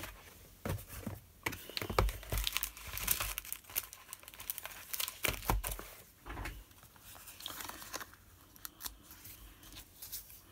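Paper crinkling and rustling as a sheet of foam adhesive dots (Dimensionals) is handled, with irregular small clicks and taps.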